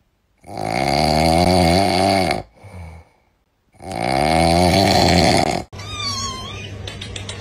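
Sleeping kitten snoring loudly: two long, drawn-out snores about three seconds apart, each trailing into a short, softer breath. Near the end the snoring cuts off suddenly and a brief, wavering high call follows.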